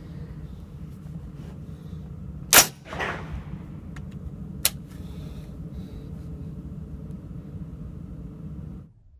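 A single rifle shot from a Matrix Aerospace M762 AR-10-pattern rifle about two and a half seconds in, with its echo rolling back a moment later, then a shorter, sharp crack about two seconds after it, all over a steady low rumble.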